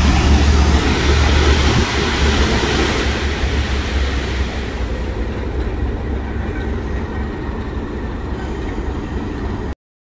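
Class 37 diesel locomotive's English Electric V12 engine running as it hauls an engineering train of tank wagons past, with a strong low drone and rail noise. Loud at first, then fading from about halfway. The sound cuts off abruptly near the end.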